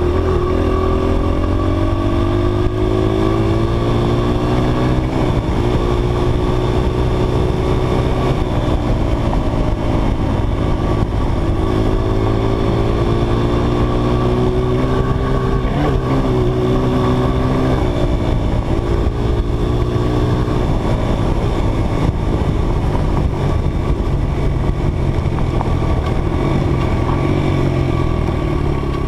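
Dirt bike engine under throttle, its pitch climbing in long rises and dropping back between them as the rider shifts gears, over a steady low rumble.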